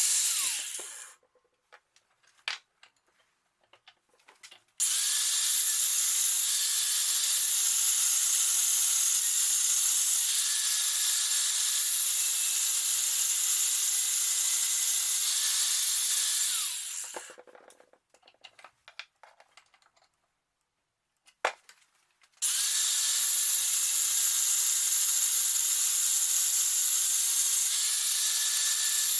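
Sandblasting gun blasting metal with compressed air: a loud, steady hiss. It cuts off about a second in, runs again from about five seconds to about seventeen, and starts again after about twenty-two seconds. Scattered light clicks come in the pauses.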